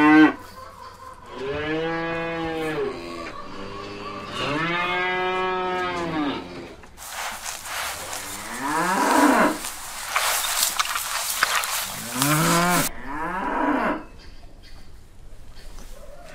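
Cows mooing: a series of long, drawn-out moos that rise and fall in pitch, about four in all, with a hiss under the calls in the middle.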